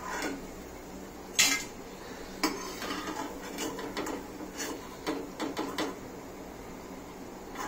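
A stainless steel slotted spoon clinking and scraping against steel cookware as fried onion pakoras are lifted out of the oil. It makes a series of irregular metallic knocks, the loudest about one and a half seconds in.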